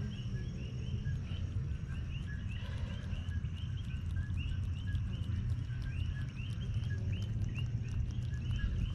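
A chorus of small calling animals: short rising chirps, each with a lower note, repeating about twice a second, with a faint steady high tone and a low rumble underneath.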